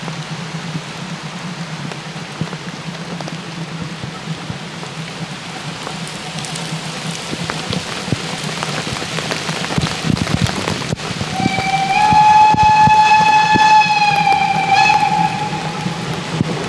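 Steam locomotive whistle blowing one long note for about three seconds, starting about twelve seconds in and dropping in pitch as it ends. Under it runs a steady rushing noise, and just before it comes a run of clicks and knocks as the sound swells.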